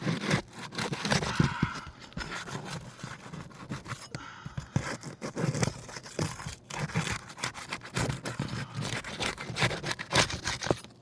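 Asphalt 3-tab roofing shingles being lifted and pried loose: scraping, crinkling and tearing as the sealed tabs come unstuck, with many irregular clicks and knocks.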